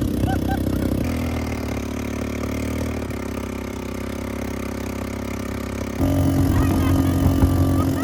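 Engine of a small motorised ride vehicle running steadily. The sound changes abruptly about 1, 3 and 6 seconds in.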